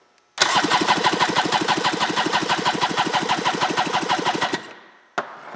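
Yamaha 650 two-stroke twin jet-ski engine cranked over on its starter for a compression test, with an even, fast pulse of compression strokes; it runs for about four seconds and stops. The gauge on the magneto-side cylinder reads 150 psi.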